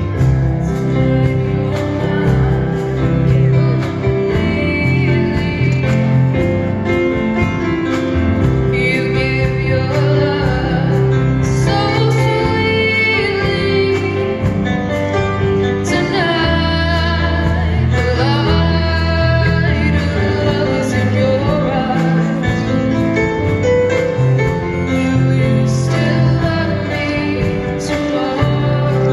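A girl singing a solo into a microphone over an instrumental accompaniment with a prominent bass line.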